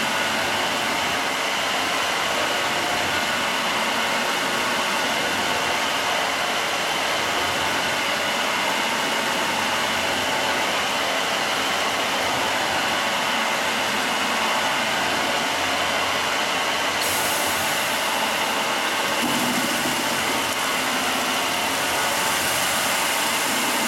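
Nine-head automatic stone polishing machine running, its rotating polishing heads grinding a wet granite slab: a loud, steady mechanical noise without a break.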